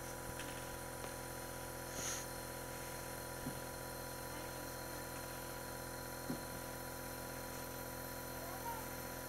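Oxygen concentrator running with a steady, even hum while it supplies oxygen through a tube to a face mask, with a few faint soft knocks.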